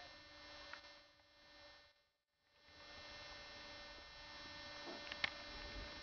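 Faint steady electrical hum in the recording. It cuts out briefly about two seconds in, then returns, with a couple of faint clicks.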